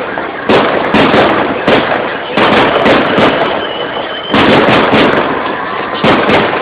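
Fireworks display: loud bangs of bursting shells, one after another, about every half second to second, each trailing off before the next. There is a short lull a little after the middle.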